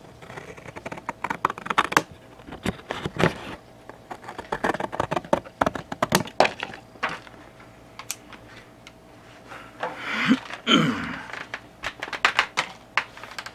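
Cardboard Funko Pop box being pulled apart by hand at its glued seams as the bottom panel comes off: a run of sharp clicks and small cracks of the paperboard. About ten seconds in there is a louder, longer stretch of tearing and creaking.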